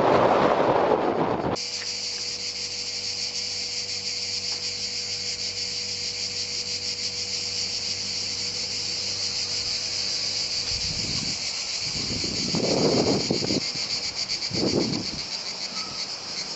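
A chorus of cicadas in the trees: a dense, high-pitched, fast-pulsing buzz that never lets up. Wind buffets the microphone for about the first second and a half and again in gusts near the end.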